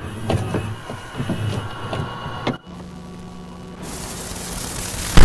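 Mechanical whirring with irregular sharp clicks, cutting off suddenly about two and a half seconds in to a steady low hum, then a rising hiss that swells toward the end.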